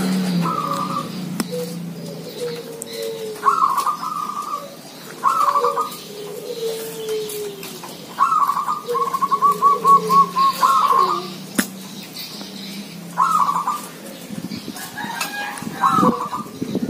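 Zebra doves (perkutut) cooing in turn: repeated short, bubbling coo phrases, with a long run of rapid even notes about eight seconds in, and softer lower coos between the phrases.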